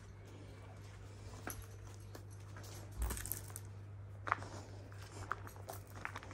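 Footsteps on a tiled path and gravel, with scattered light clicks and scuffs and a short rustle with a low thud about three seconds in.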